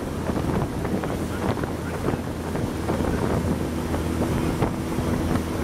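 Boat motor running steadily as the boat cruises along a river, a constant low hum under rough gusts of wind on the microphone.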